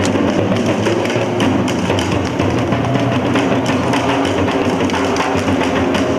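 Batucada percussion music: a rack of tom-style drums struck in quick, even strokes over music with a steady bass line.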